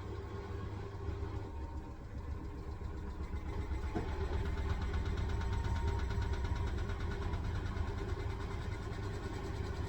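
Hisense washing machine running on its wool cycle: a steady low motor hum with faint whining tones, growing somewhat louder a few seconds in, with a single light click near the middle.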